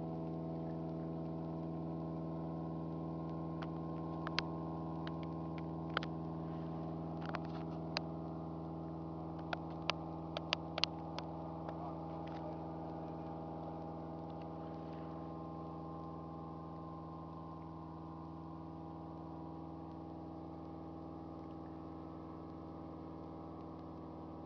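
Boat engine running at a steady drone that fades slowly, with a few sharp clicks and ticks in the first half.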